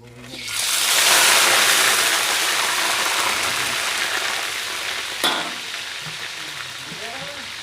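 Food dropped into hot cooking oil: a loud sizzle swells up within the first second, then slowly dies down as the frying settles. A sharp knock sounds about five seconds in.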